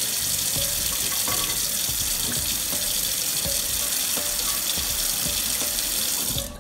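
Kitchen faucet running a steady stream of water into a stainless steel sink, a continuous splashing hiss that cuts off near the end.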